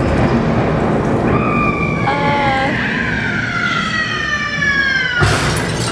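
Haunted Mansion stretching-room effects over the ride's speakers in the dark: a rumble of thunder, with a long scream falling steadily in pitch over about four seconds. Near the end a sudden loud crash cuts it off.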